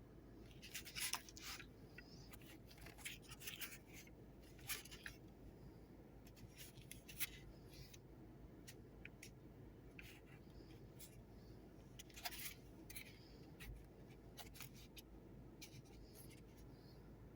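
Faint handling noise from a small plastic camcorder being turned over in the hands: scattered light clicks, scrapes and rubbing, with a few sharper clicks about a second in and again around seven and twelve seconds in.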